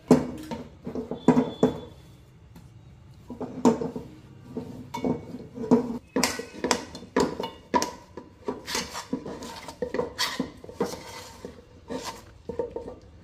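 Steel spoon scraping and clinking against a metal kadhai, in many quick irregular strokes, as a soft milk-powder dough is stirred and pressed around the pan.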